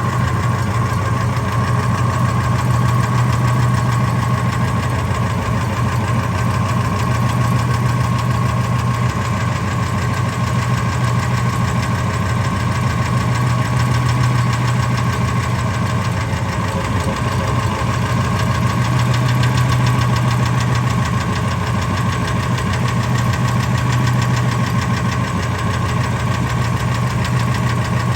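Ford F-250 engine running steadily with a fast, even ticking. The lash adjusters and rocker arms have checked out good, and the owner suspects the tick is spark knock.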